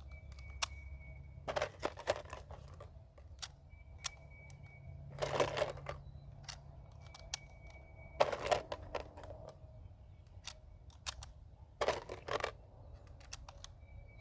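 Metal clicks and handling knocks as an SKS rifle is readied, most likely rounds being loaded into its ten-round magazine. Four louder knocks come about every three to four seconds among many lighter clicks.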